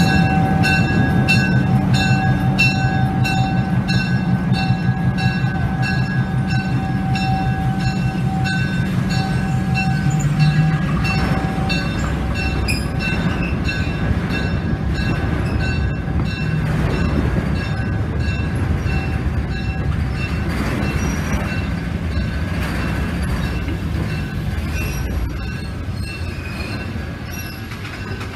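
Diesel locomotive engine running as it passes slowly, with steady high tones over it. After about ten seconds the engine fades and freight cars roll past on the track.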